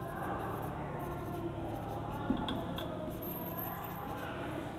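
Marker pen writing on a whiteboard, faint, with one short tap a little before halfway.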